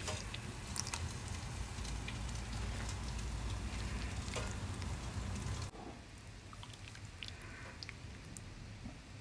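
Thai green curry sauce and chicken being spooned and ladled from a stainless steel pot into a bowl of rice noodles: soft wet spooning and pouring sounds with a few light clicks of metal on the pot and bowl. A low steady hum underneath cuts off suddenly about six seconds in.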